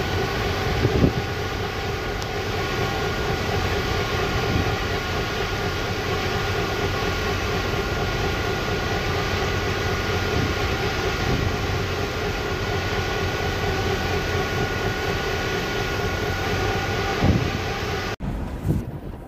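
Steady loud mechanical drone of container-terminal machinery heard from inside a truck cab, with a constant high whine and a couple of dull knocks. It drops away abruptly about a second before the end.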